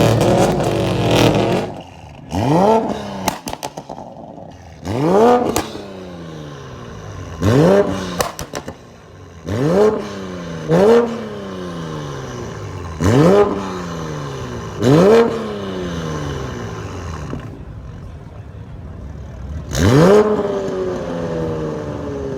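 Performance car engine revved hard about eight times in short blips, each shooting up quickly and falling back to idle. Exhaust pops and crackles follow some of the revs.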